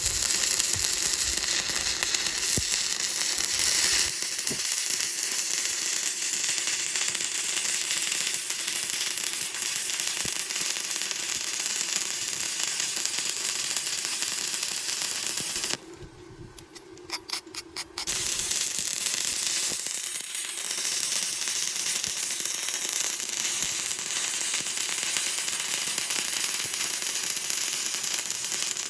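Stick (SMAW) welding arc crackling steadily as a bead is run on steel plate. About 16 seconds in the arc goes out for about two seconds, with a few short sputters as it is struck again, then crackles steadily once more.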